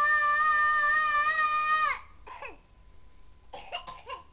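A young child's high voice holding one long chanted note of a call to prayer, which drops off about two seconds in, followed near the end by a few short falling syllables.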